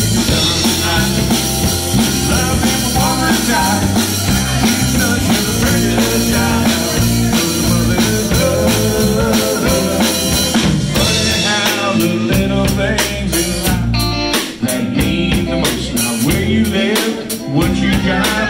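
Live band playing an instrumental stretch between sung lines: electric guitar over electric bass and a drum kit keeping a steady beat.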